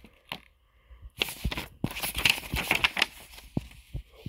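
Cardboard packaging insert being handled: a couple of light clicks, then about two seconds of rustling and crinkling in the middle.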